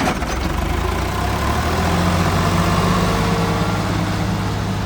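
Heavy diesel engine running, with a short knock at the very start; its pitch climbs a little about a second and a half in and eases off again near the end.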